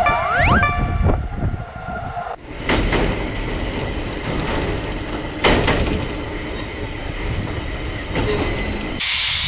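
Train running on rails: a steady rumble with a thin high squeal from the wheels and two clanks a few seconds apart. It ends with a loud burst of hiss about a second before the end.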